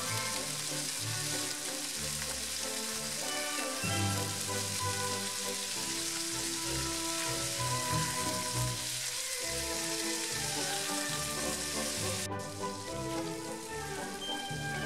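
Cubes of chicken breast sizzling as they brown in hot avocado oil in a frying pan, turned now and then with a spatula. The sizzle cuts off abruptly near the end, with background music throughout.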